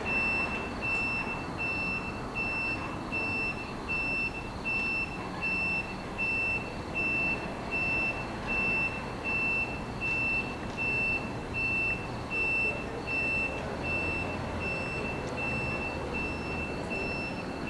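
An electronic beeper sounds a high, steady-pitched beep about three times every two seconds, over a low rumble that swells somewhat in the middle of the stretch as the train draws closer.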